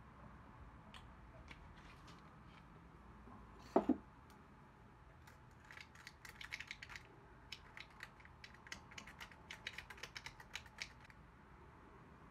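Small plastic spoon stirring and scraping in a small plastic cup, a quick run of clicks and scrapes from about five seconds in, as pigment powder is mixed into a liquid binder to make ink. About four seconds in, a loud double knock.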